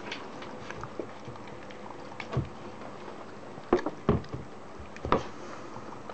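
Corgi eating udon noodles from a bowl: irregular smacking and chewing clicks, the loudest few in the second half.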